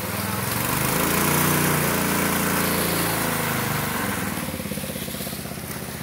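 Small gasoline-engine water pump running, its engine speeding up in the first second or so, holding, then slowing back down near the end.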